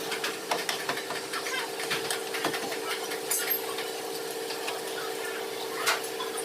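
A steady machine hum with irregular light clicks and taps over it.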